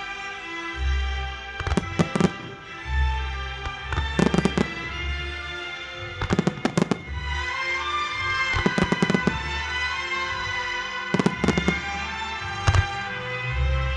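Firework bursts over music: about six clusters of rapid, sharp bangs, each lasting under a second, come every two to three seconds while the music plays on underneath.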